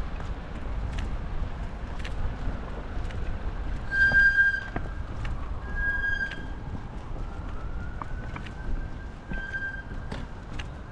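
An emergency-vehicle siren wailing, its pitch gliding up and down with a few brighter held notes, the strongest about four seconds in, over a steady low city traffic rumble and scattered ticks.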